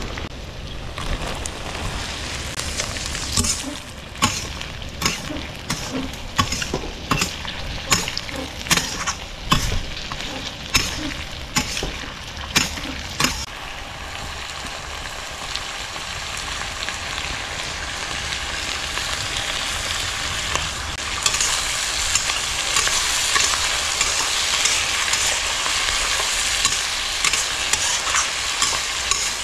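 Pork and garlic scapes stir-frying in a pan: sharp clacks of the spatula against the pan come in quick succession for the first dozen or so seconds, then a steady sizzle that grows louder about two-thirds of the way through.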